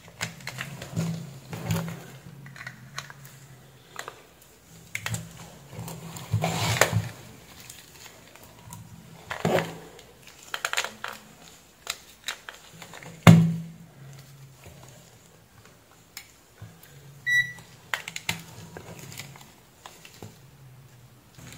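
Scattered clicks, knocks and rubbing as a power connector, an epilator and multimeter test probes are handled on a work mat, with one sharp loud click about 13 seconds in and a short high beep about 17 seconds in. The epilator's motor does not run: it gets supply voltage but stays silent.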